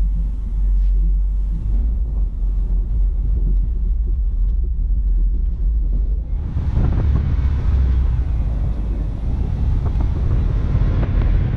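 Wind buffeting the microphone of a camera mounted on the outside of a moving car, over a low rumble of the car driving along a snowy road. About six and a half seconds in the noise becomes louder and hissier.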